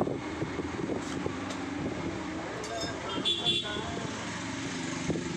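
Background road traffic hum with a short, high vehicle horn toot about three seconds in.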